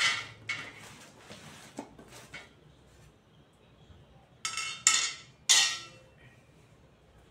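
Cardboard box and plastic wrapping shifted and rustling, then a metal bench leg frame set down on a tile floor, clanking three times in quick succession with a short metallic ring.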